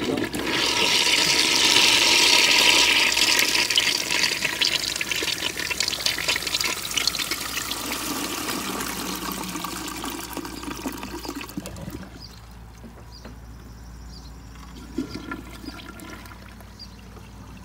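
1920s Kohler Selkirk toilet flushing with soap in the tank: water rushes into the foamy bowl all at once, loudest about two to three seconds in, then gradually fades. About twelve seconds in it drops to a quieter running of water.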